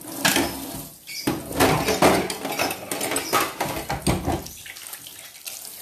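Metal pots, bowls and utensils clattering, with repeated knocks and scrapes as kitchenware is handled and moved aside; the clatter dies down about four and a half seconds in.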